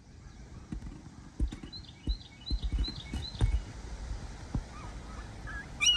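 Small birds chirping: a run of short, quickly repeated high chirps, then a louder whistled call near the end. Under them are a low rumble and several sharp low thumps.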